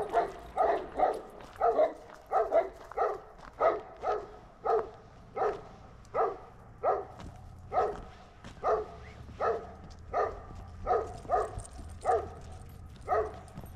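A dog barking over and over in short, evenly spaced barks, about one and a half a second, without a break.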